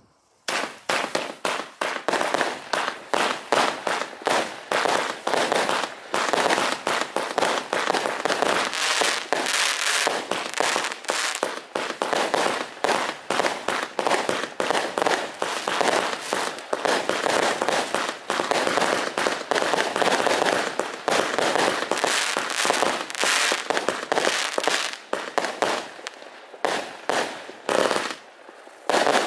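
Vulcan 'Intense' multi-shot firework barrage firing in rapid succession: a dense string of launch thumps and bursting reports, starting about half a second in. Near the end the shots thin out, with one last loud report.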